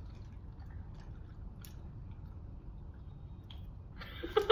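Quiet chewing of BeanBoozled jelly beans over a low room hum, with a couple of faint clicks. About four seconds in, a burst of laughter and voices breaks out.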